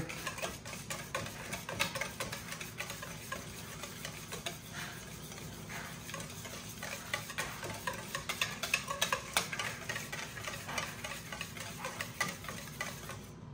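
Wire balloon whisk beating a runny homemade buttermilk ranch dressing in a stainless steel mixing bowl: steady wet swishing with many quick light clicks of the wires against the bowl.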